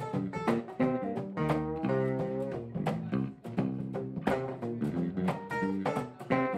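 Live instrumental music: a guitar played in plucked notes in quick succession over low bass notes.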